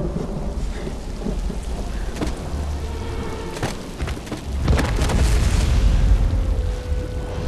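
Film sound effects: a deep, continuous rumble with scattered sharp cracks and crashes, growing louder about two-thirds of the way through, like a heavy upheaval of rock and debris.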